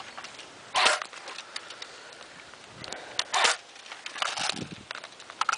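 Airsoft rifle firing three short bursts of BBs, with a few single clicks near the end.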